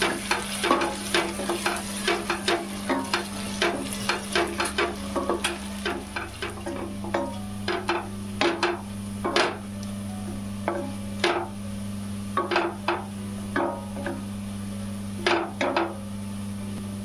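Wooden spatula scraping and knocking against a steel pot in quick, irregular strokes, stirring sliced onions and whole spices frying in mustard oil, with a faint sizzle under a steady low hum.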